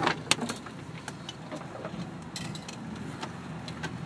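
Off-road vehicle's engine running steadily at low revs, heard from inside the cabin, with scattered sharp knocks and clicks as the vehicle jolts along a rutted dirt track.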